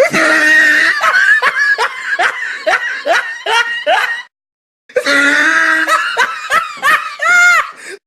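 Two laughter sound effects one after the other, each a run of quick repeated 'ha' bursts, with a short silence between them; the second ends in a longer drawn-out note.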